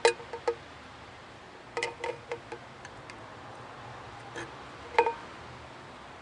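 Scattered light clinks and taps, each ringing briefly, from small hard objects being handled: a cluster at the start, another about two seconds in, and a single louder clink about five seconds in.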